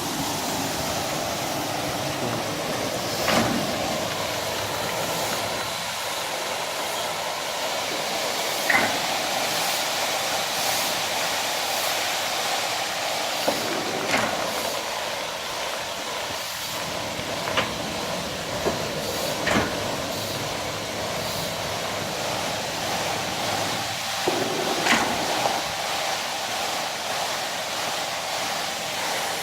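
Automatic carpet washing machine running: a steady mechanical noise with a hiss, broken every few seconds by short sharp knocks.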